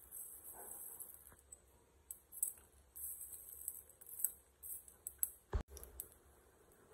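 Cumin, mustard seeds and chana dal tempering in hot oil in a small steel pan: faint, scattered crackling and ticking, with a sharp click about five and a half seconds in.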